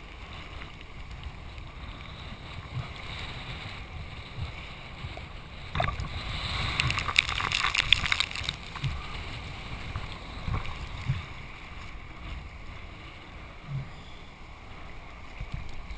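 Water sloshing and splashing close to a camera at the water's surface, over a low wind rumble on the microphone. A louder burst of splashing comes about six to eight seconds in.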